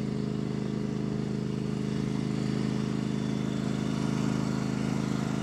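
Engine of a large machine running steadily, a deep even drone that holds the same pitch and level throughout.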